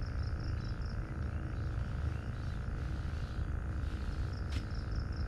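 Outdoor ambience: a steady low rumble, with a high chirping call of quick, even notes, about six a second, heard near the start and again near the end, and a single sharp click about four and a half seconds in.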